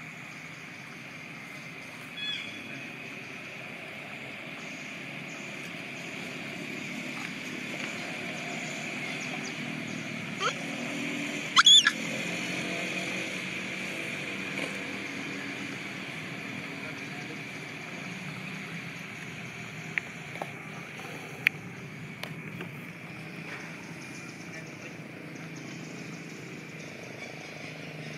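Outdoor ambience: a steady low hum of distant motor traffic under a steady high insect-like buzz, with a few short chirps and one brief loud squeal about twelve seconds in.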